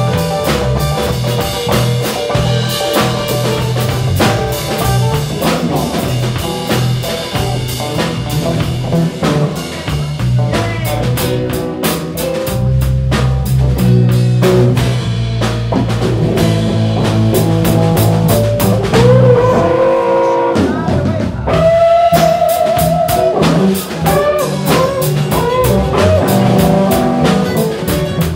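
Live band playing: a drum kit keeping a steady beat under electric and acoustic guitars, with a wavering held note a little after the two-thirds mark.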